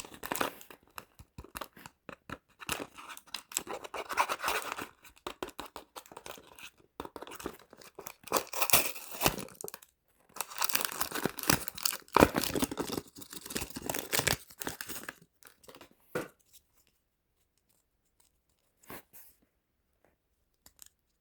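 Packaging being torn open and crinkled by hand, in dense crackling bursts for about sixteen seconds, then only a few faint rustles.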